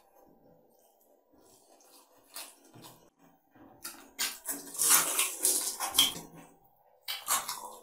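Close-up eating sounds of a man eating rice and fish curry by hand: wet chewing and lip smacking, with fingers mixing rice against the plate. The sounds come as short bursts, faint at first and loudest in a run about halfway through.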